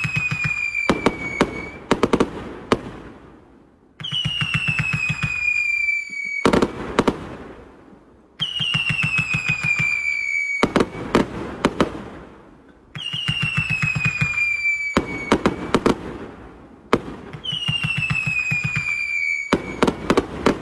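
Multi-shot fireworks cake firing shot after shot, about every four and a half seconds. Each shot gives a falling whistle of about two seconds, followed by a few sharp bangs.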